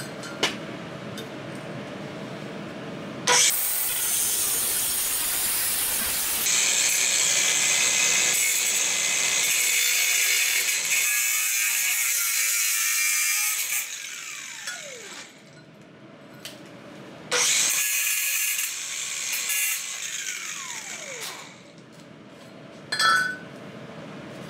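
Cordless angle grinder cutting through a metal exhaust pipe. It starts about three seconds in and cuts for about ten seconds, then winds down with a falling whine. It runs and cuts again for about four seconds, winds down once more, and a sharp metal clink follows near the end.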